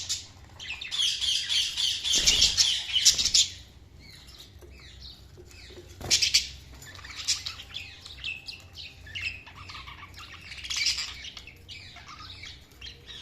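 Budgerigars chirping and warbling, with a loud dense stretch of chatter in the first few seconds and a sharp burst about six seconds in, then softer scattered chirps.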